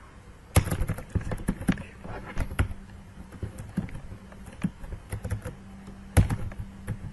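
Computer keyboard typing. There is a quick run of keystrokes in the first couple of seconds, then scattered key presses, with two sharper clicks, one near the start and one about six seconds in.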